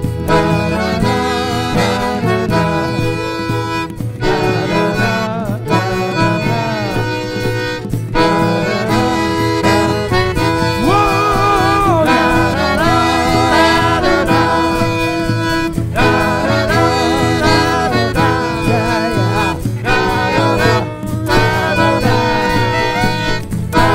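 Live traditional Irish band playing an instrumental passage of a song, with accordion and fiddle carrying a wavering melody over guitar backing.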